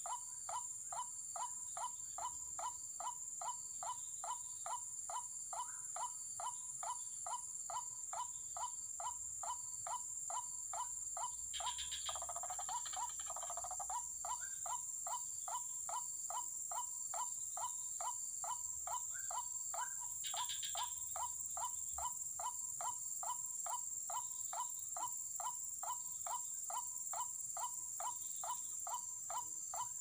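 White-breasted waterhen call used as a lure: one short note repeated about three times a second with machine-like evenness. A steady, high insect drone runs beneath it, and a harsher burst of sound comes about twelve seconds in.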